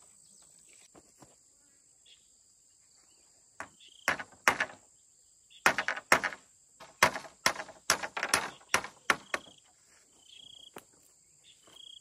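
Irregular hard strikes of a hand tool on wood, a couple about four seconds in and then a quick run of them for about four seconds, over a steady high buzz of crickets.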